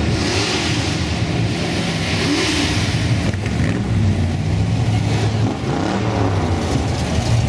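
Muscle car engines running loud and revving, the pitch rising and falling a few times as cars go by in a parade.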